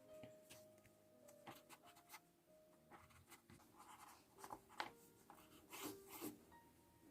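Pen writing on paper: faint, irregular scratching strokes, busier in the second half, over soft sustained background music.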